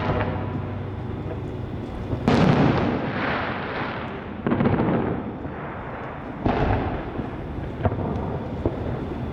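Fireworks shells bursting: four sudden booms about two seconds apart, each trailing off in a long rumbling echo.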